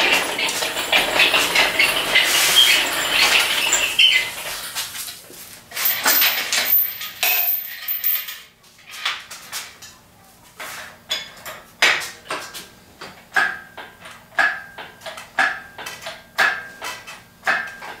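Steel lifting chain on an engine hoist clinking and rattling as it is handled, loudest for the first few seconds. It is followed by scattered knocks, then by short sharp metallic clicks about once a second.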